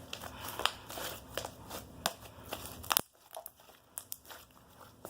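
Clear glue glitter slime being squished and stretched by hand, giving a run of small sharp pops and crackles. The pops thin out after about three seconds.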